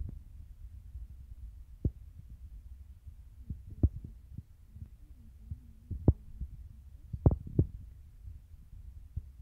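Low rumble with a handful of soft, irregular knocks: handling noise on a phone's microphone while it screen-records.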